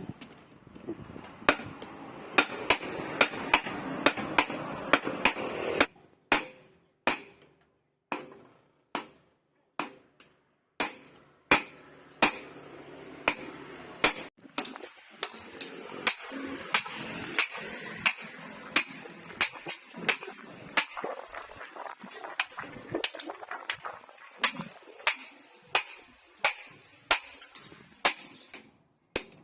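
Hand hammer striking steel on an anvil in a steady series of sharp, ringing blows, about one to two a second, as spring steel is forged.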